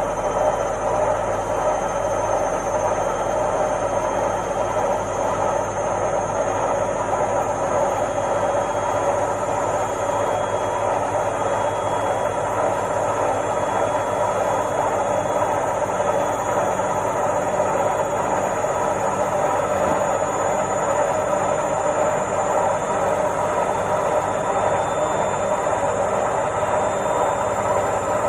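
Washing machine running: a steady mechanical rumble and hum with a faint high whine above it, unchanging throughout.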